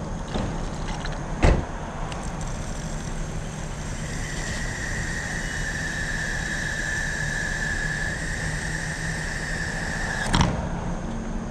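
1992 Harley-Davidson Fat Boy's 1340 Evolution V-twin engine running steadily on the road. A steady high whine runs through the middle, and there are two sharp clicks, one near the start and one near the end.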